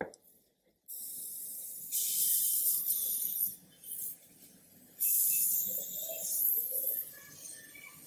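Hot-air gun blowing with a steady hiss, melting an orange plastic insulating stick into the seam of a plastic circuit-board cover. The hiss starts about a second in, drops away briefly in the middle and comes back. A short click at the very start.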